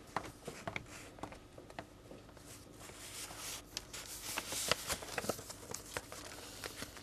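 Quiet rustling of paper with scattered light clicks, busiest about four to six seconds in, as paper is handled at a desk.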